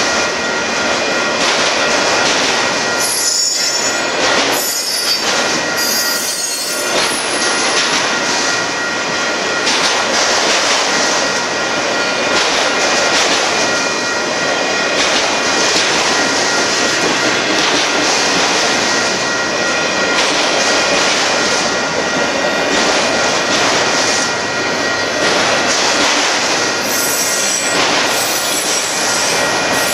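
Union Pacific auto rack freight cars rolling past at a steady pace: a continuous loud rumble and clatter of steel wheels on rail, with a steady high-pitched wheel squeal running through it.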